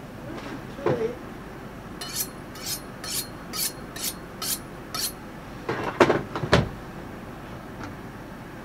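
A knock, then a kitchen knife drawn along a sharpening steel in seven even scraping strokes, about two a second, followed by a few loud knocks, the loudest of them about six seconds in.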